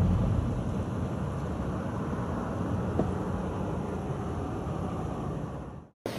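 Steady outdoor noise with a low rumble and no clear single source; it fades away near the end.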